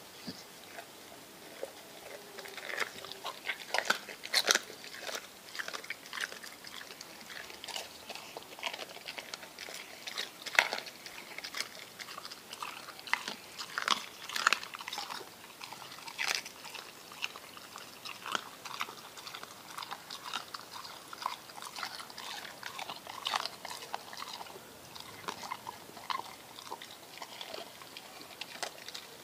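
American Staffordshire Terrier chewing and licking a small fish, with many irregular wet crunches and smacks.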